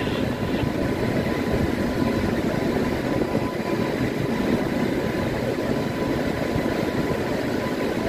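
Steady rumble and rattle of a moving freight train.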